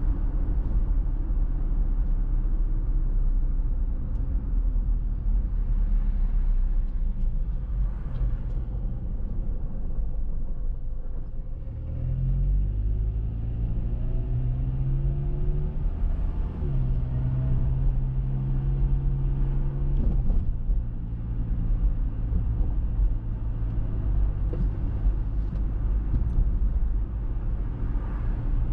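Car driving on a town street: a steady low rumble of road and wind noise. About halfway through, an engine note rises in pitch, breaks briefly, then holds steady before dropping away.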